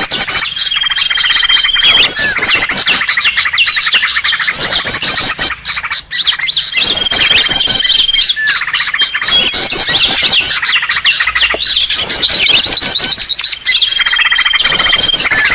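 Cucak ijo (green leafbird) lure calls: dense, loud, fast chattering and squawking with quick rising and falling whistles. A held whistle recurs about every six seconds, so the pattern repeats.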